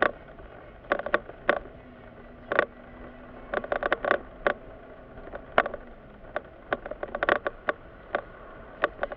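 Irregular short rattling clicks inside a slowly moving car's cabin, some single and some in quick clusters, over a low steady cabin hum. A faint steady tone runs under them for a few seconds from about two seconds in.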